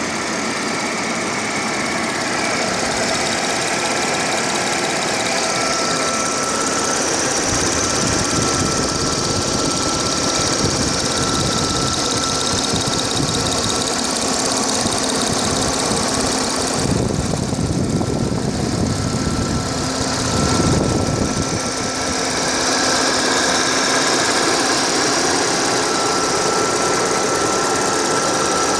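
Audi A6 4F 3.0 TFSI supercharged V6 idling, with a clicking noise in its running, heard from above in the engine bay. A thin steady high tone runs over the engine sound.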